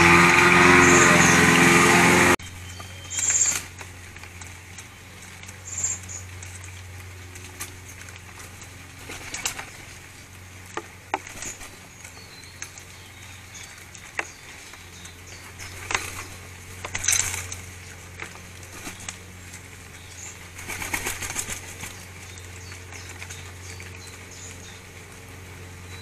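Jackdaws' wings flapping now and then, each flap short and sharp, over a steady low hum. A loud steady noise cuts off abruptly about two seconds in.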